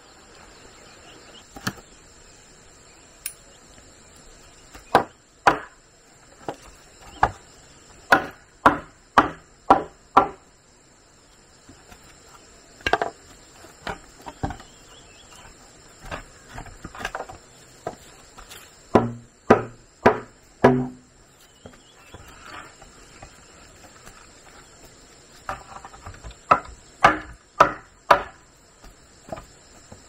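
Chopping with a hand tool: sharp blows struck in bursts of several strokes, a little under two a second, with pauses between bursts. A steady high insect drone runs underneath.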